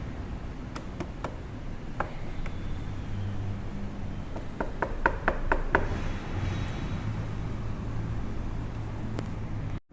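Yamaha LC135's single-cylinder four-stroke engine idling steadily, with sharp clicks on top: a few scattered early and a quick run of about six halfway through.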